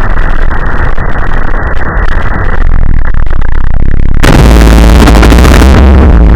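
A person's goat imitation, edited into extremely loud, clipped, distorted noise. About four seconds in it turns harsher and brighter for a second and a half, then drops back.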